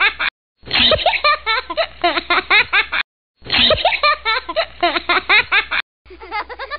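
High-pitched giggling laughter. The same short stretch plays over and over, broken by brief dead silences.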